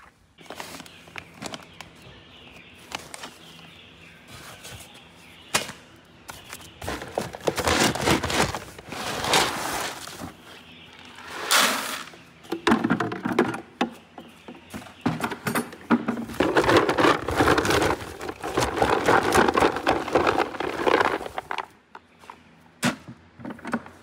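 Dry feed pellets being scooped with a plastic scoop and poured into a plastic bucket: several rushing, rattling pours of a second to a few seconds each, with a few sharp knocks of the scoop between them.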